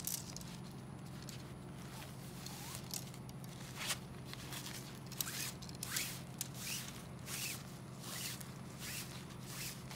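Race-gate pole being pushed through the sleeve of a nylon fabric gate banner: a run of short, irregular scraping swishes of pole on fabric.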